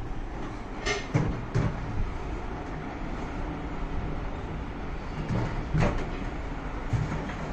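Plywood strips being set down and pressed onto the underside of an upturned galvanized steel trunk: a few wooden knocks on hollow sheet metal, a cluster about a second in and more near the end, over steady low background noise.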